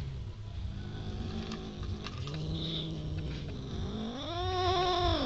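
Domestic cats growling low while guarding food from each other, then one long yowl near the end that rises, holds and falls.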